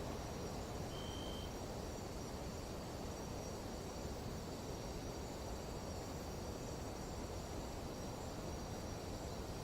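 Nighttime insect chorus: several steady high trilling tones held without a break over a constant low rushing noise. A single short high note sounds about a second in.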